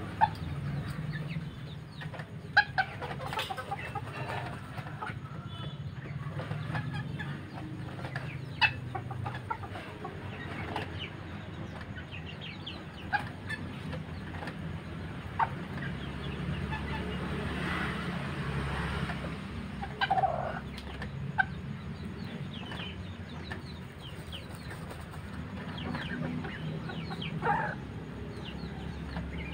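Serama bantam chickens clucking now and then in short, scattered calls over a steady low hum.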